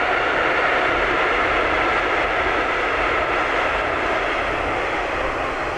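Double-deck passenger train crossing a concrete railway viaduct: a steady rushing noise that begins to fade near the end as the train moves off.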